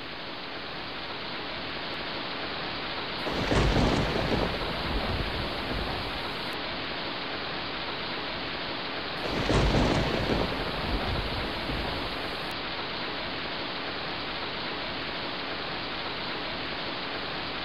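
Wind blowing across the microphone: a steady rushing hiss with two stronger gusts that rumble and buffet, about three seconds in and again about nine seconds in.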